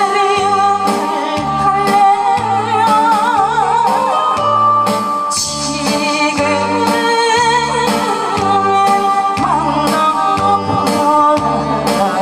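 A woman singing a song with wavering vibrato into a microphone over an amplified backing track with a steady, regular bass beat.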